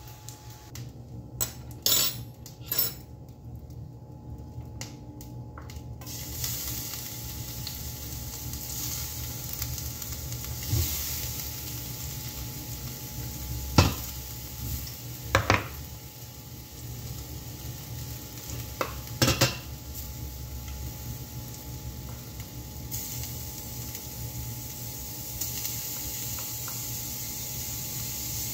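Chopped garlic and onion frying in oil in a stainless-steel pan, sizzling steadily from about six seconds in. A wooden spatula knocks sharply against the plastic tub and the pan several times as the food is scraped in, after a few light clicks near the start.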